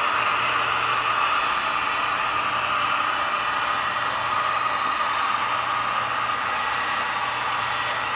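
A steady, even hiss with a faint low hum underneath; nothing starts or stops.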